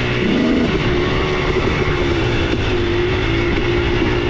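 Dirt bike engine running under way on a trail, heard from the bike itself, holding a fairly steady pitch with small rises and dips as the throttle is worked, over a rough rushing noise.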